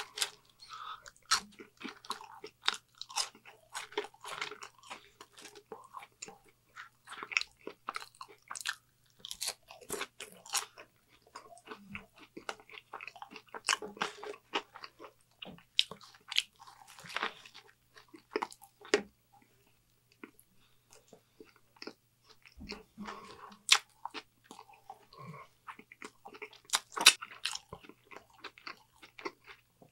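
Close-miked eating: a person chewing fast-food fries, with many sharp crunches and wet mouth clicks, then biting into and chewing a Burger King Whopper. The chewing thins out a little past the middle, then returns with the loudest crunches near the end.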